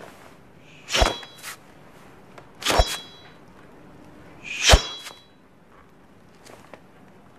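Three sharp weapon strokes, about two seconds apart, as tasselled blades are swung through the air in a kung fu film. Each is a hard swish with a brief metallic ring and a softer swish just after it.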